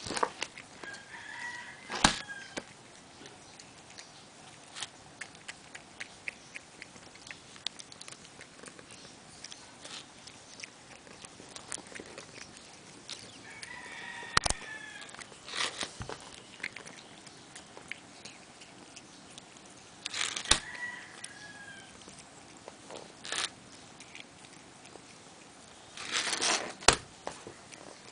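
A cat chewing and tearing at a pot of cat grass: crisp snaps and crunches with a few sharp louder snaps. Now and then, about four times, a brief high squeak is heard.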